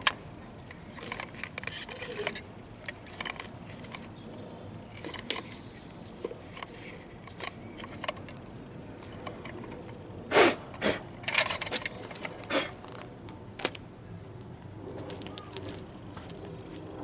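Scattered clicks and knocks of plastic fuel-pump assembly parts being handled and taken apart, with a short run of louder knocks a little past the middle.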